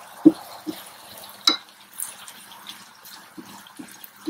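Wooden spatula stirring yard-long beans, onion and tomato in a non-stick frying pan: soft, irregular knocks of the spatula against the pan about every half second, with one sharper click about a second and a half in, over a faint sizzle of the food cooking.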